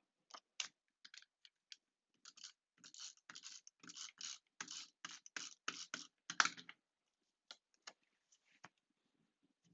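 Quick, irregular scratchy rustles and clicks of cardstock being handled and pressed down while a paper piece is attached to a handmade card.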